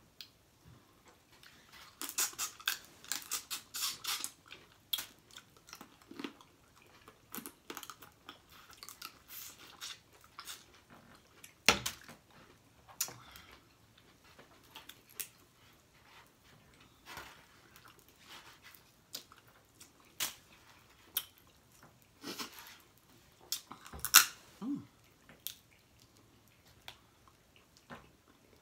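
Close-miked eating of blue crabs: wet chewing and lip smacking, broken by crunches and sharp snaps. There is a dense run of clicks about two to four seconds in, and the loudest snaps come about 12 and 24 seconds in.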